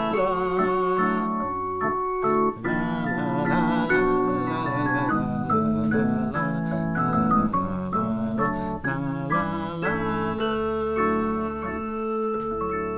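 Fairground-style organ music: a lively tune of quick, changing notes, some of them wavering, over steady low chords.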